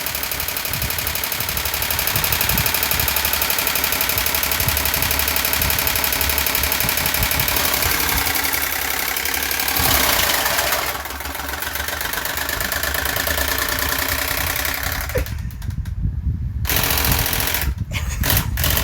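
Electric fan running with a steady, chugging, knocking rumble like an idling tractor engine. The sound drops away for a moment about fifteen seconds in, and briefly again near the end.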